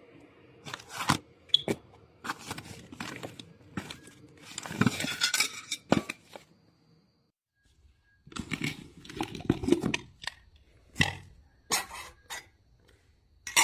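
Camp cooking: cookware and utensils being handled, with scattered knocks and clinks and short stretches of scraping and rustling. The sound drops out for about a second near the middle, then the clatter resumes.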